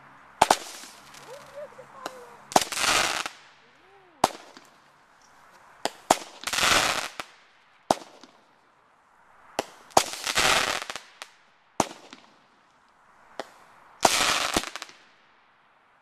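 Consumer fireworks going off in quick succession: a sharp bang about every one and a half to two seconds, several of them followed by about a second of crackling.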